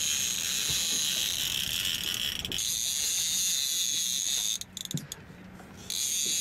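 Fishing reel's drag buzzing steadily as a hooked striped bass pulls line off against it, in long runs broken by a short lull about two and a half seconds in and a longer pause of over a second later on.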